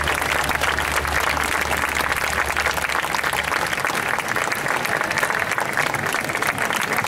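Audience applauding, many people clapping steadily, with a low hum underneath that stops about halfway through.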